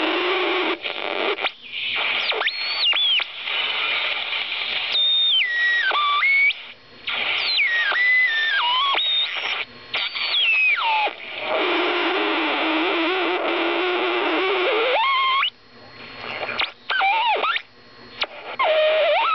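Vintage portable AM radio being tuned across the band: loud static hiss with thin whistling tones that slide up and down in pitch as the dial turns, broken by a few short drop-outs.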